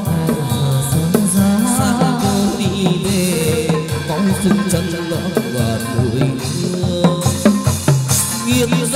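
Chầu văn ritual music played live: a singing voice and plucked melody over a steady beat of drum and clappers.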